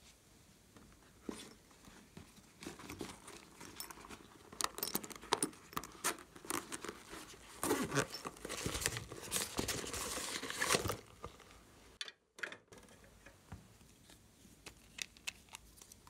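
Hands handling and unzipping a small red zippered pouch: crinkly scraping and rustling with many small clicks, busiest and loudest in the middle. It cuts to silence for about half a second, and a few light clicks follow near the end.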